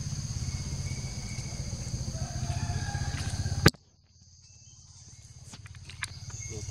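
Steady, high-pitched insect buzzing over a low rumble. A little past halfway a sharp click sounds, then the sound drops almost away and slowly fades back in, with a few faint ticks.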